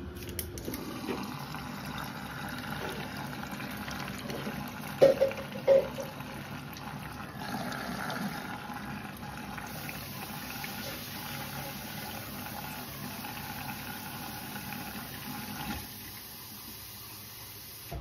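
Bosch front-loading washing machine filling with water at the start of a rinse cycle: a steady rush of incoming water with sloshing as the laundry turns in the drum. Two short knocks about five seconds in.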